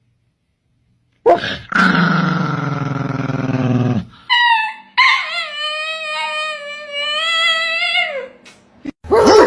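A dog howling. It starts about a second in with a low, drawn-out note that sinks in pitch, then after a short break gives one long, high, wavering howl of about four seconds. A different sound cuts in near the end.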